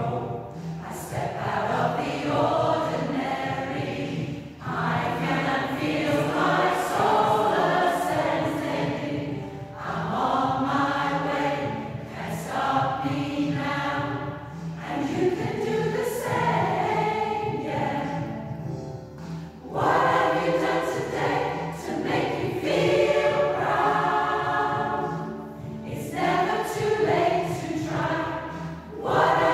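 A choir of mostly women's voices singing together in long phrases, with brief breaks between phrases every several seconds.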